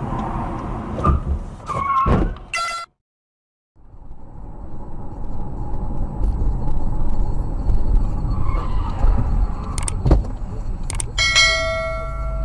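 Dashcam audio from a moving car: steady engine and road noise with several sharp knocks. The sound cuts out completely for under a second, about three seconds in. A steady pitched tone sounds near the end.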